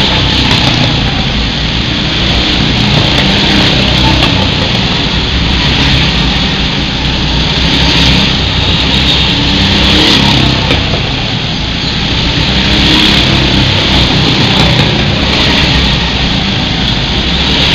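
Several go-kart engines running hard around an indoor track, the noise swelling every few seconds as karts pass close by.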